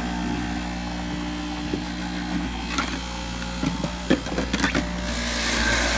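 Electric centrifugal juicer's motor running with a steady hum while apple pieces are pushed down the feed chute and ground. A cluster of sharp knocks and clacks comes about three to five seconds in.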